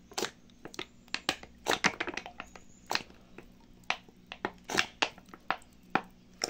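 Plastic detergent bottle crackling as it is squeezed to pour detergent into a basin of water: a quick, uneven run of sharp clicks and crinkles.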